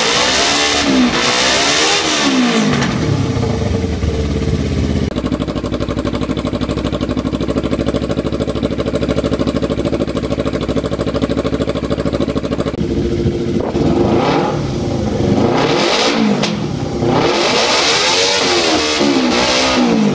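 Kawasaki Ninja 250R parallel-twin running through an aftermarket shorty MotoGP-style slip-on exhaust with a thin baffle: a few quick rev blips at the start, settling to a steady idle about five seconds in, then revved repeatedly again from about thirteen seconds.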